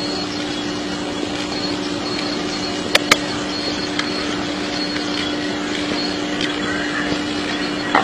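Steady background hiss with a constant low hum, broken by two sharp clicks close together about three seconds in.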